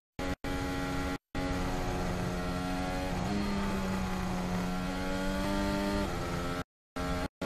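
Formula 1 car's 1.6-litre V6 turbo-hybrid engine (Honda RA621H in the AlphaTauri AT02) at high revs, its pitch dipping and rising as the car shifts between sixth and fifth through a corner and accelerates out. The sound cuts out completely for brief moments several times.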